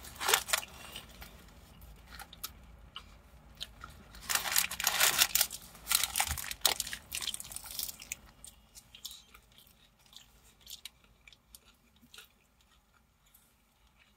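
Close-up biting and chewing of a hamburger held in a paper wrapper, the paper crinkling with it; the loudest crackly stretch comes about four to seven seconds in, then the sounds thin out to quieter chewing.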